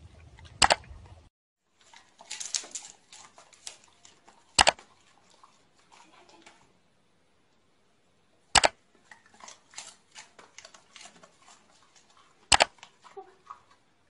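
Four sharp knocks, evenly spaced about four seconds apart, with softer clicks and rustling between them.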